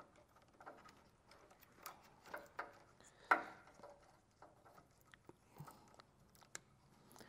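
Faint, scattered clicks and light rustling of wires and small plastic connectors being handled, as an insulated spade connector is pushed onto a towing diode's terminal; one sharper click about three seconds in.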